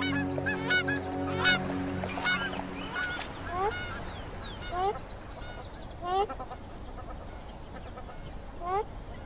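Birds calling: a quick run of short harsh calls, then four separate upward-sliding calls spaced a second or two apart. Sustained background music notes fade out within the first two or three seconds.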